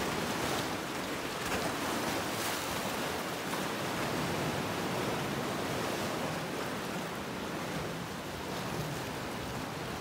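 Sea waves washing and swirling over shoreline rocks: a steady rush of surf that swells a little in the first few seconds.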